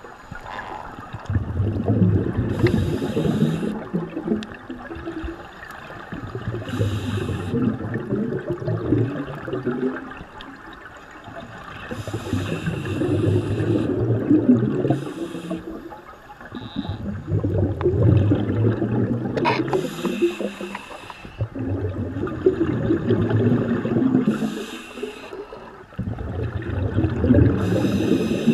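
Scuba diver breathing through a regulator underwater: a rhythmic cycle of hissing and a rush of bubbling exhaled air, about one breath every five seconds, six breaths in all.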